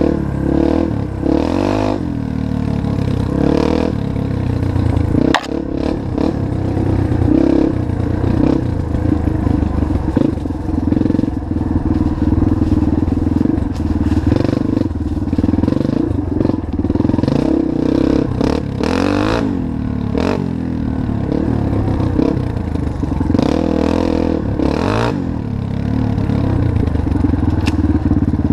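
2005 Yamaha TT-R230's single-cylinder four-stroke engine running through an exhaust with the baffle removed, its revs rising and falling as the bike is ridden along a trail, with sharp knocks now and then.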